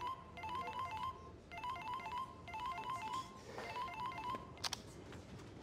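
Mobile phone ringtone: a quick pattern of electronic beeping notes repeating about once a second. It stops about four seconds in, followed by a single sharp click.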